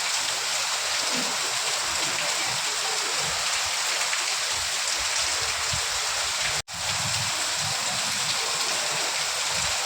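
Steady rain, an even hiss of falling drops. It cuts out for an instant about two-thirds of the way through, then resumes.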